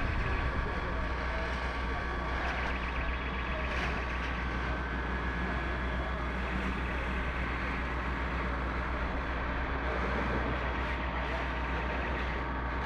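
Fire engine's engine running steadily, driving its pump to feed the hoses: a constant drone with a thin, steady whine over it.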